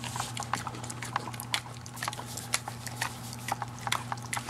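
Pit bull chewing and smacking at a dog treat caught in her mouth: irregular wet clicks and smacks, several a second.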